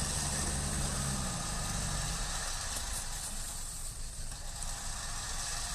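Off-road 4x4 vehicle's engine idling with a steady low hum, its tone dropping and fading away about two seconds in.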